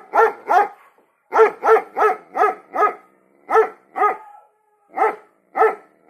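An animal giving a series of short, pitched barking calls, about three a second, in bouts broken by brief pauses.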